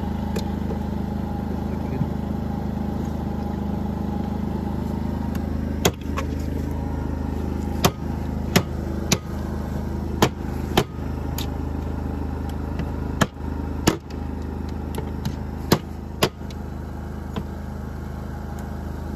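Knife chopping and cutting through small game carcasses on a cutting board: about fifteen sharp, irregular knocks. Under them an engine runs steadily with a low drone.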